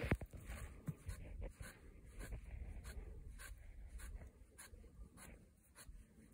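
Faint scratchy rubbing and scraping of hands working in a llama's thick wool: a run of short, irregular scratches.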